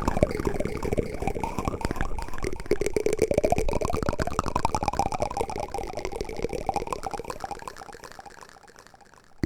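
A watery, gurgling sound made of many rapid small pulses, its pitch sweeping up and down, fading away near the end.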